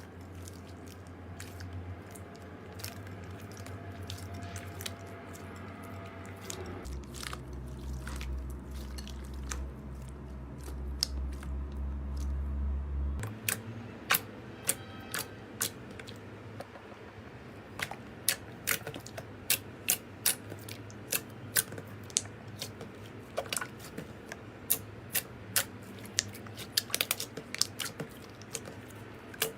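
Slime being squeezed and poked by hand, giving many sharp little pops and clicks over a low steady hum.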